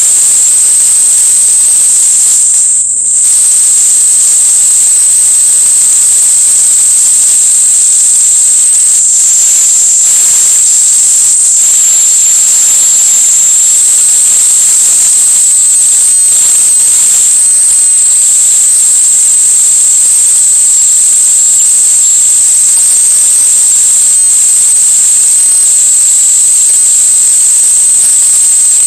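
Loud, steady hiss with a constant high-pitched whine, unchanging apart from a brief dip about three seconds in.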